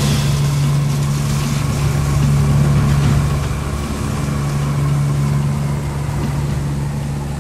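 Steady drone of the Lockheed WP-3D Orion's Allison T56 turboprop engines and propellers, heard from inside the cabin.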